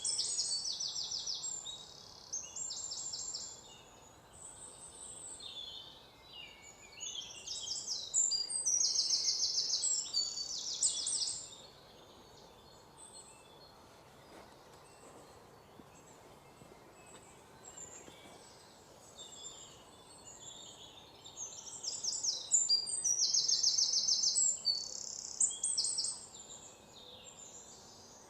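Wild birds singing: bouts of fast, high trills lasting a couple of seconds each, with quieter calls and chirps in between.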